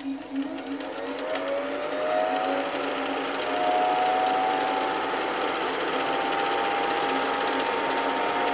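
1953 Bolex M8 8 mm film projector switched on with a click, its motor and film mechanism spinning up with a rising whine over the first few seconds, then running steadily.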